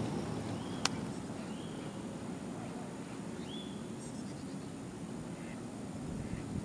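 Outdoor background with a steady low rumble, a few short chirps from small birds and one sharp click about a second in.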